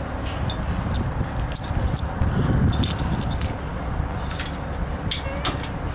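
A bunch of keys jangling, with several short metallic clinks over a few seconds, against a steady low rumble.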